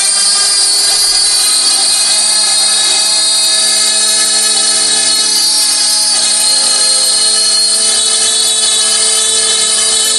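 SCR5040 CNC router spindle running at high speed while its small end mill cuts a curve into an acrylic sheet: a loud, steady high-pitched whine with the hiss of cutting, unbroken throughout.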